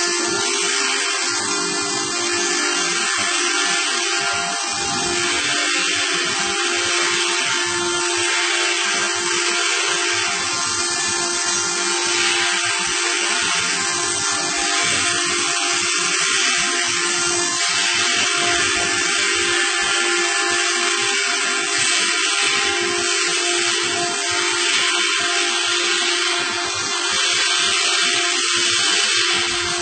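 Steady mechanical whine and hiss of running machinery, a motor's even hum tones holding over a constant noise.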